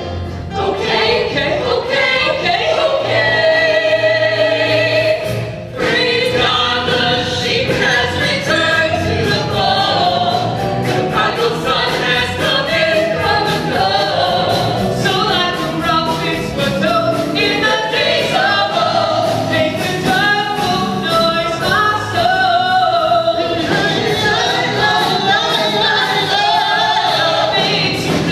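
Choir singing a gospel-style song, with many voices in harmony.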